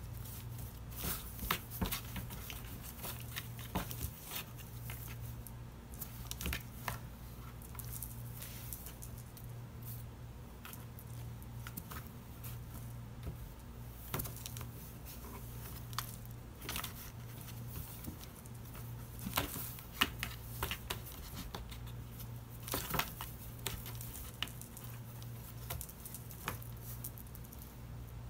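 Irregular scratching, scuffing and rustling of cats moving about inside cardboard boxes, over a steady low hum.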